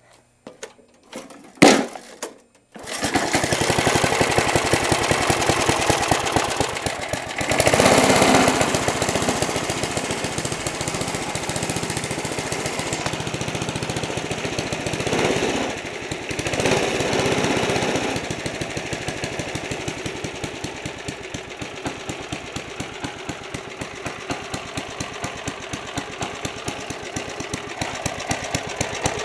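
3.5 hp Briggs & Stratton single-cylinder engine on a push lawn mower, pull-started. A couple of short sounds come first, then it catches about three seconds in and keeps running. It is louder for stretches about 8 and 16 seconds in, then settles to a lower, steadier run with distinct firing pulses.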